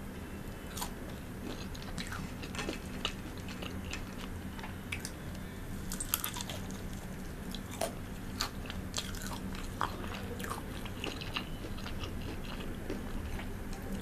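Close-miked biting and chewing of crispy breaded fried chicken from a KFC Double Down: irregular crunches with wet mouth clicks, the sharpest bites about six and eight seconds in.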